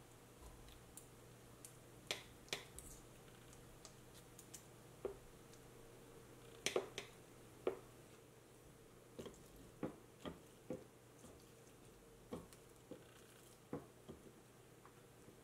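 Scattered light clicks and taps of utensils on ceramic dishes: a metal knife and fork cutting burrata in a bowl, then chopsticks picking at a rice-paper pizza on a plate. The sounds are irregular, with the loudest cluster of taps about halfway through.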